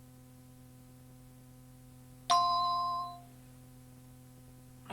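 A single cueing chime about two seconds in: one struck ring with a few clear tones together, fading out over about a second. It marks the start of the next answering-machine announcement. A faint steady hum lies underneath.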